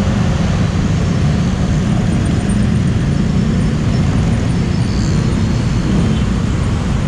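Motorbikes moving slowly in dense traffic, the rider's own engine among them: a steady rumble of engines and road noise.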